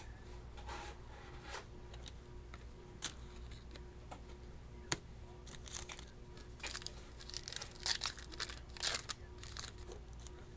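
Foil trading-card packs being torn open and their wrappers crinkled, with cards handled in between: scattered sharp clicks and short rustling bursts, the loudest flurry between about seven and nine seconds in, over a steady low hum.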